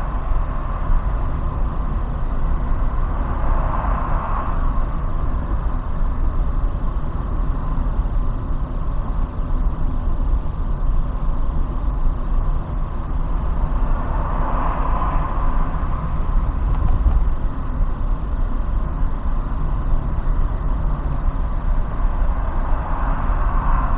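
Road noise of a car driving at speed on an expressway, recorded inside the car by a dashcam's built-in microphone: a steady low rumble of engine and tyres, with the hiss swelling briefly a few times.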